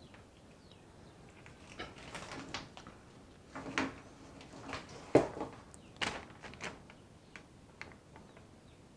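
Handling noises from wiring work: scattered rustles and clicks, with a sharp knock about five seconds in.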